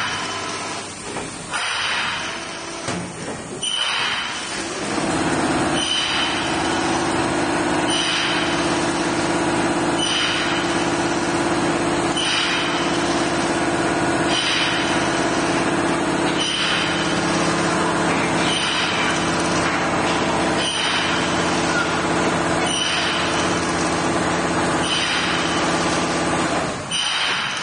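Hexagonal wire netting machine running: a steady motor hum comes in a few seconds in and stops near the end, with a short hiss repeating about every two seconds throughout its weaving cycle.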